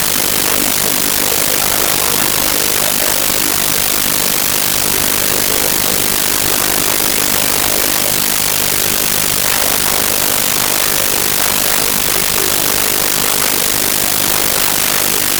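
Loud, steady hiss, like static, drowning out the game: the audio fault of a broken recording. Faint voices show through underneath.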